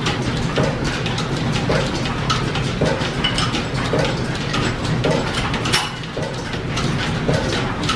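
Belt-driven lathe and overhead line shafting running steadily, with a regular knock repeating about once a second.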